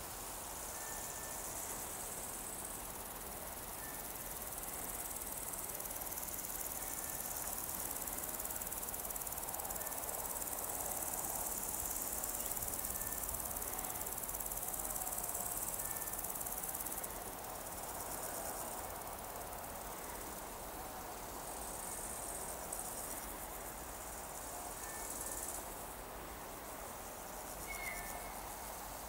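Insects chirring steadily in summer grass, with brief faint high chirps now and then.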